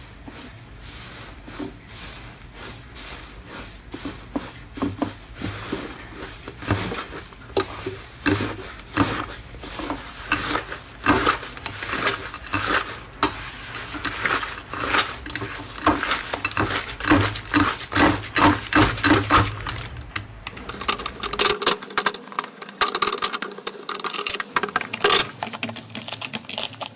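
Slime being squished and poked by hand, a dense run of sticky clicks and pops, loudest in the middle.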